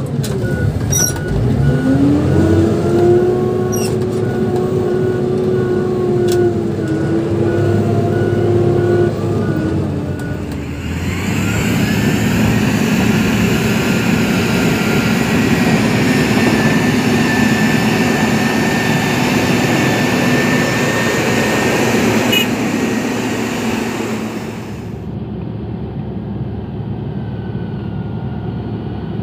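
Motor grader's diesel engine running under load: its pitch dips and climbs back in the first second, then holds steady. About ten seconds in it changes to a louder, noisier engine sound with a steady high whine, and near the end it falls to a quieter drone.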